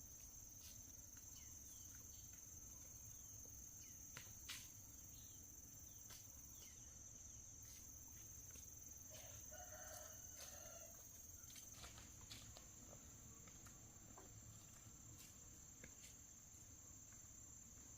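Faint rural ambience: a steady high-pitched insect drone, with a rooster crowing faintly in the distance about nine seconds in.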